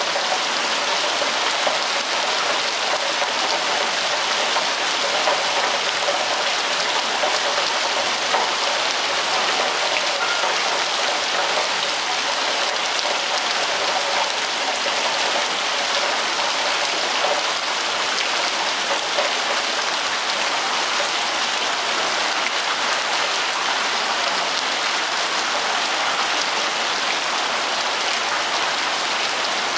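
Rain falling steadily, an even hiss that holds at the same level throughout.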